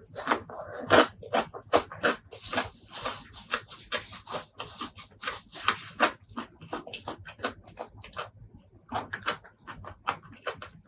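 Close-miked eating: wet chewing and lip-smacking of spicy pork leg curry and rice, in quick irregular smacks, with a stretch of hiss from about two to six seconds in.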